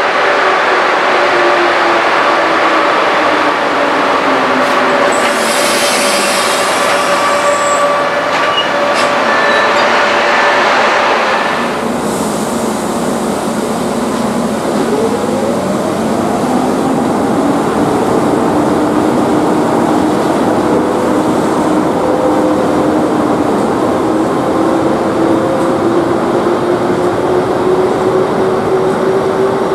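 ČD class 151 electric locomotive hauling an express passenger train, with rail noise and a motor whine that falls in pitch as the train slows into the platform. A hiss comes in for a couple of seconds about six seconds in. Then the locomotive pulls away, its whine rising steadily in pitch as it accelerates.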